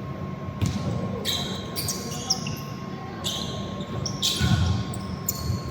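Indoor basketball game sounds: a ball dribbling on the court and sneakers squeaking in several short, high-pitched bursts.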